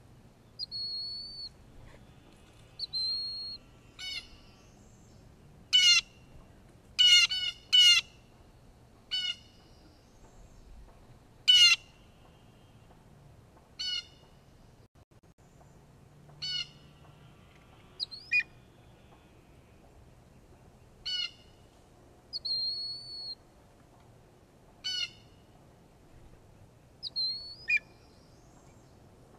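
Blue jays giving repeated harsh, downslurred jeer calls, mobbing calls at a bald eagle in its nest. The calls come singly and in quick pairs, loudest about six to twelve seconds in. A few higher, clear whistled notes fall between them.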